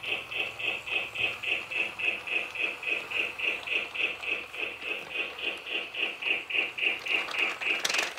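Lionel Little Lines toy steam locomotive running on its track, giving a steady, even chuffing of about six chuffs a second. A short clatter comes near the end.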